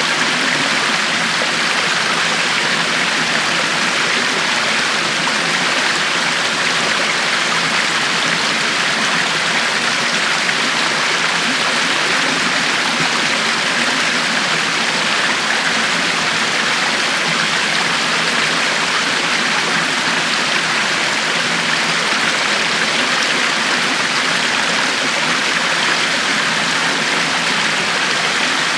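River water flowing steadily over rocks, a constant rushing hiss with no change in level.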